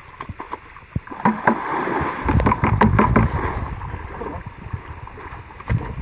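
A saltwater crocodile lunging out of a shallow muddy channel: loud splashing and churning water from about a second in, easing off after about three and a half seconds.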